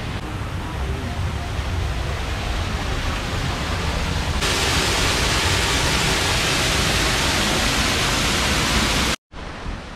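Waterfall pouring in a steady rush, heard from behind the falling curtain of water, growing much louder and brighter about four and a half seconds in; it cuts off suddenly near the end.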